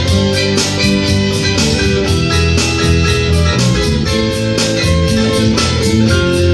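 Instrumental music with a steady, evenly repeating beat and sustained pitched notes, with a guitar-like plucked string part.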